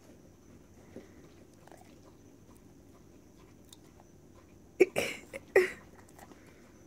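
A dog blowing out hard through its nose twice in quick succession, about half a second apart, while sniffing at a broccoli floret held to its nose.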